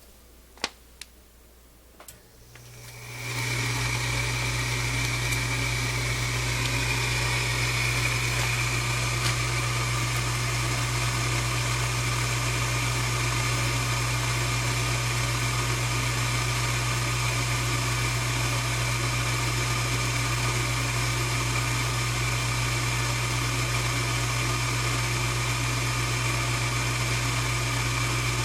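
Goodman gas furnace starting up: a few faint clicks, then about three seconds in its fan motor spins up and runs with a steady hum and a high whine.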